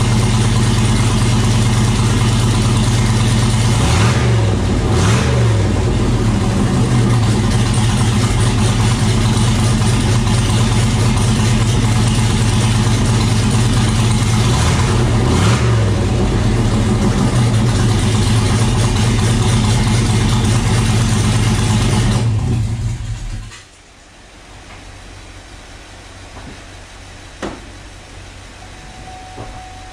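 C6 Corvette's V8 running with the turbo not yet mounted, so the exhaust leaves straight through the new manifolds and open turbo inlet. It is run loud to blow debris out of the fresh pipework before the turbo goes on. It idles steadily with two brief revs, then is shut off about 23 seconds in, leaving a faint hum and a click.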